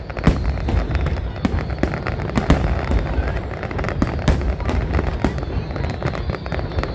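Fireworks display going off in quick, irregular succession: many sharp bangs and crackles one after another over a steady low rumble.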